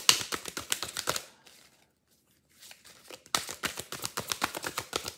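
A deck of affirmation cards being shuffled by hand: rapid papery flicks and riffles of card against card. They stop about a second in, pause for about two seconds, then start again.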